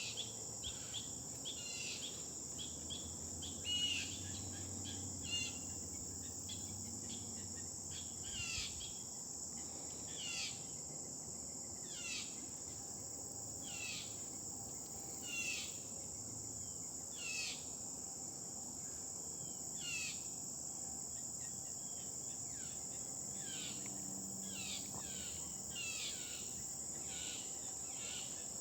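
Steady high-pitched drone of crickets and other insects, with short high chirps that fall in pitch repeating every second or two.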